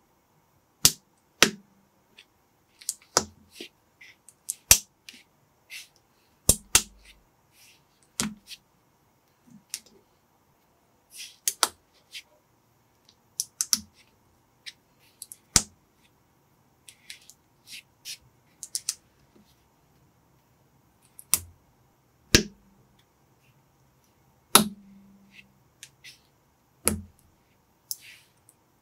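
Small plastic Lego pieces clicking sharply as they are pressed together and handled by hand, in irregular single snaps a second or two apart, with faint rustling between them.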